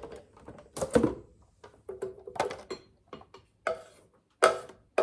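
A spoon knocking and scraping against the inside of a blender jar of ground peanuts. It makes a few separate sharp clinks with a short ring, the loudest about a second in and again near the end.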